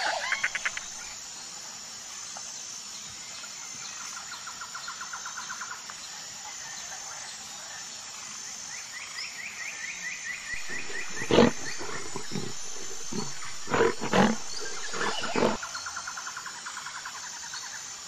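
Lionesses calling with a run of short, deep grunts and moans, loudest between about ten and fifteen seconds in. A steady high chirping and rapid trills sound behind them.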